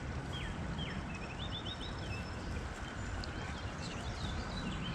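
Small birds calling: several short, high chirps that sweep downward, and a quick trill of rapid notes about a second in, over a steady outdoor hiss.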